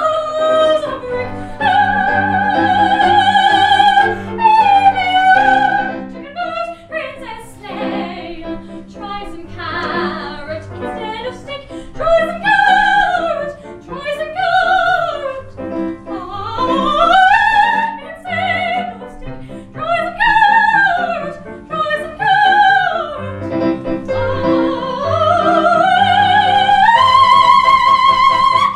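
Operatic soprano singing with wide vibrato in repeated rising and falling runs, climbing near the end to a long high held note.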